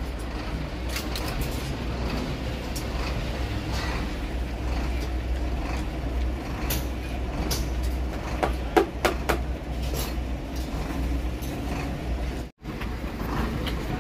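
Steady low vehicle rumble with scattered short knocks and clicks, workshop or street noise. It cuts out for an instant near the end.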